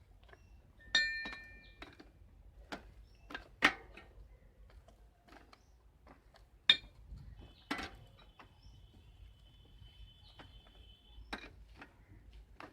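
Sparse metallic clinks, taps and knocks of a spanner working against a bicycle crank and pedal. One clink about a second in rings briefly. A faint, thin steady tone sounds for a few seconds past the middle.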